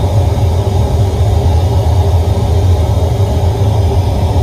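Large sound-system speaker stack playing a loud, steady test noise, heaviest in the deep bass, while the system is being tuned against a spectrum analyser.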